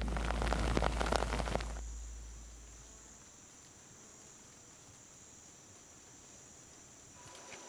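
A deep rumble with rushing noise fades away over the first three seconds, leaving quiet rainforest ambience with a faint, steady, high-pitched insect drone.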